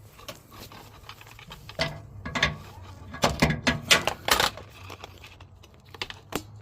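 Hand tools clanking and rattling on metal under the vehicle, a run of sharp knocks and clicks bunched in the middle with one more near the end, typical of a socket and ratchet working the fuel tank's 13 mm mounting bolts.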